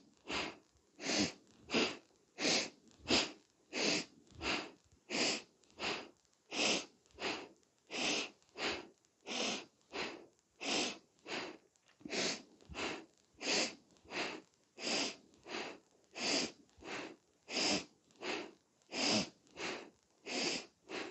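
A woman breathing forcefully and rhythmically through her nose, in and out in turn, about three breaths every two seconds, in time with a seated side-to-side yoga twist.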